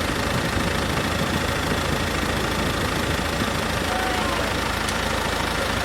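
A boat's engine running steadily at a constant pace.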